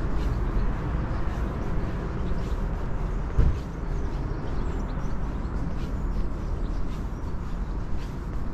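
Steady low city rumble of an outdoor urban street, with faint regular footsteps on brick paving. A brief low thump about three and a half seconds in.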